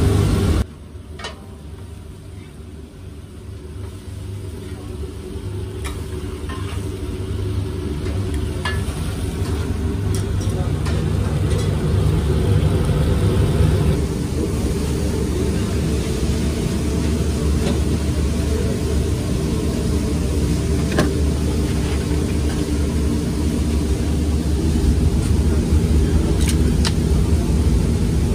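Steady low rumble of a working street-food kitchen, with a few light clicks. It drops suddenly about half a second in and swells back over the next several seconds.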